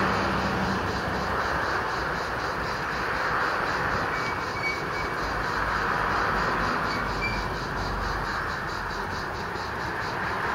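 Cicadas singing in chorus: a steady, dense buzz overlaid with a higher chirring that pulses about five times a second.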